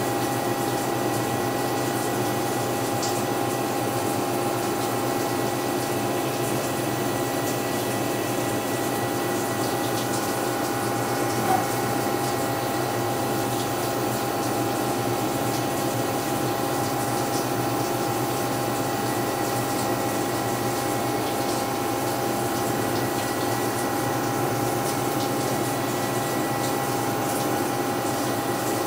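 CNC milling machine running with a 1/8 inch end mill cutting the screwdriver blade slot into the end of a flashlight knob's stem: a steady spindle whine over cutting noise, with one brief tick about eleven seconds in.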